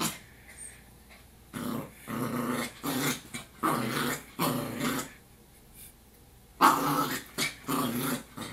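Yorkshire Terrier puppy growling at trash bags it is scared of: a run of about five short growls, a pause, then three more, the first of those the loudest. A sharp click comes at the very start.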